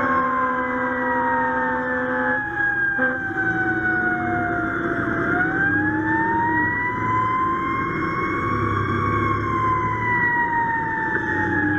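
Fire apparatus siren wailing. Its pitch slides slowly down, swings back up about five seconds in, then falls again. A steady horn tone sounds over it for the first two seconds and again briefly a moment later, with the truck's engine running underneath.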